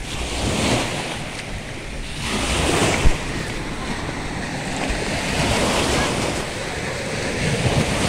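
Small sea waves washing in and breaking over sandstone rocks at the shoreline, in washes that swell and fade every couple of seconds. Wind buffets the microphone throughout, and there is a short thump about three seconds in.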